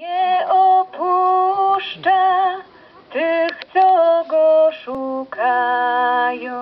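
A woman singing a Polish psalm chant solo, in long held notes that move in steps, with short breaks between phrases.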